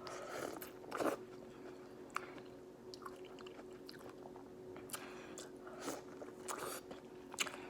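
Close-miked chewing and biting: scattered wet mouth clicks and smacks of someone eating a seafood boil, over a faint steady hum.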